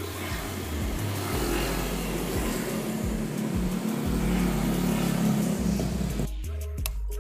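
Background music mixed with a steady rush of road traffic noise; about six seconds in the traffic noise cuts off abruptly, leaving the music on its own.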